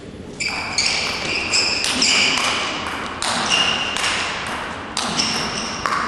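A table tennis rally: the celluloid ball clicks off the rackets and the table in a quick, uneven run of about two sharp hits a second, each with a short ring that echoes in the large hall. It starts about half a second in.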